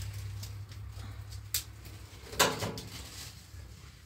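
Dry twigs and thin branches being snapped and handled as kindling for a wood stove: two or three sharp cracks, the loudest about two and a half seconds in, over light rustling of sticks.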